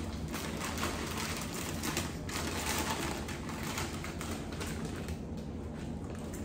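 Crinkling and rustling of a plastic Doritos chip bag being shaken and squeezed, a dense run of rapid crackles, mixed with the crunch of tortilla chips being chewed.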